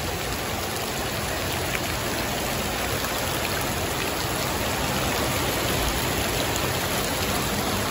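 Heavy rain pouring onto a flooded parking lot: a steady hiss of drops splashing on wet pavement and standing water.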